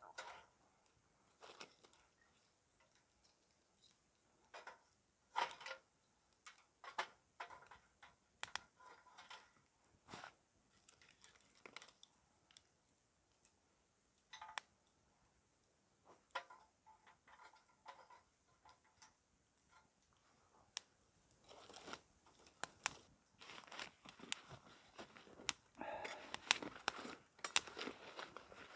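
Scattered light clicks and snaps of small dry sticks being handled and fed into a burning wood hobo stove. From about two-thirds of the way in, a denser run of crinkling and rustling as a nylon pouch is handled.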